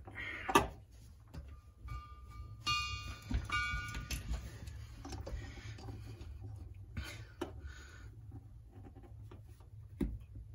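Small metallic clicks and handling noises from hands working a refrigeration access fitting on copper tubing, with a brief squeak about three seconds in, over a low steady hum.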